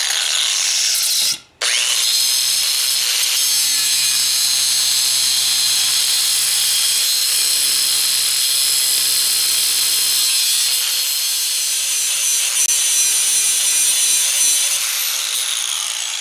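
4.5-inch angle grinder grinding clutch-basket rivet heads down flush, a steady high-pitched whine and hiss. It breaks off briefly about a second and a half in and eases off near the end.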